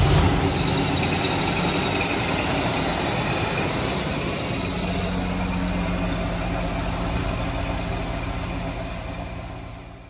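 Mercedes 500SEC's M117 V8 running at a steady idle on a substitute ignition coil. The original coil tests within spec but gives too little spark to start the engine. The sound fades away near the end.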